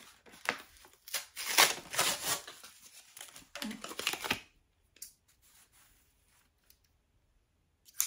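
Stiff clear plastic clamshell packaging crinkling and tearing as a pair of scissors is worked free of it, a dense run of crackles for about four seconds. Then it goes quiet apart from a few faint clicks, and a sharp click comes at the very end.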